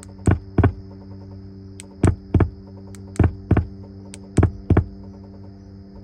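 Infiniti G37's faulty electrical system making a repeating double thump, two sharp pulses about a third of a second apart, roughly once every 1.2 seconds, over a steady electrical hum and a faint high whine. The car is not turning over, and the wiring is badly botched.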